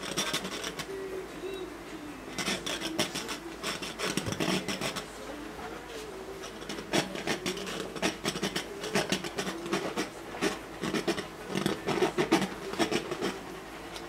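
Paintbrush scratching and rubbing over a stretched canvas in runs of short quick strokes as oil paint is laid on.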